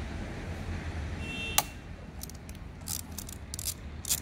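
Wrench loosening the 8mm handlebar bolts on a Royal Enfield Himalayan, making metallic tool clicks: one sharp click about one and a half seconds in, then a string of lighter clicks. A steady low rumble runs underneath.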